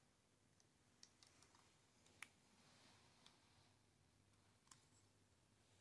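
Near silence broken by a few faint, scattered clicks of plastic Lego parts knocking as the finished models are handled, with a soft rustle of hands; the sharpest click comes about two seconds in.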